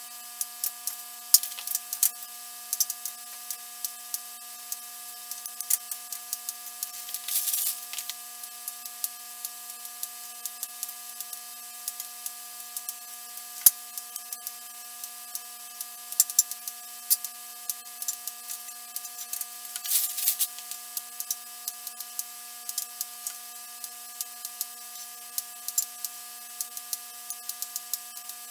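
Kitchen scissors snipping slices of bread into cubes: a long run of short, sharp clicks, several a second. Brief rustles come about 7 seconds in and again about 20 seconds in, over a faint steady hum.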